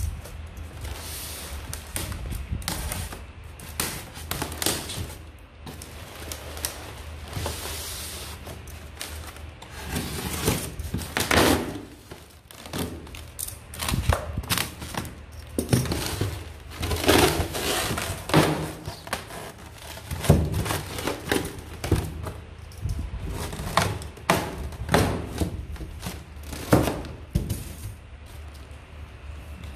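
Styrofoam box and plastic sheet being handled: irregular rustling and crinkling of plastic, with rubbing and dull thunks from the foam box.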